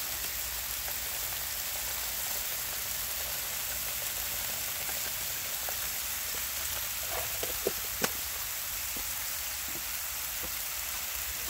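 Chicken thighs and green beans sizzling steadily on a hot flat-top griddle, with a few light ticks and one sharp click about eight seconds in.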